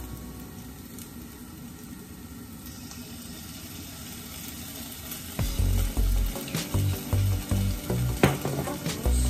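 Food sizzling in a wok as oyster sauce is poured onto it. A little past halfway, a run of irregular heavy thumps and clatter begins.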